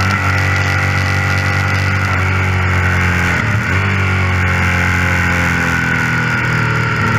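Suzuki SV 650's V-twin engine revving high, heard from on board the bike, with a steady hiss over it. About three and a half seconds in the engine note dips briefly and picks up again.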